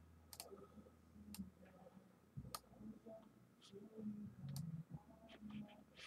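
Faint computer mouse clicks, single clicks about a second apart, over a low room hum.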